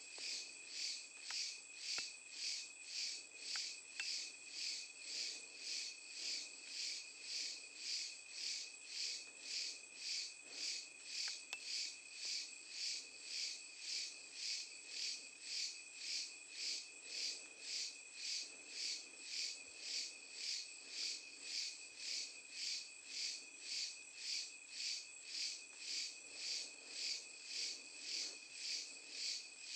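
Night insects calling: a high-pitched pulsing chorus, just under two pulses a second, over a steady thin high tone. A few faint ticks come in the first dozen seconds.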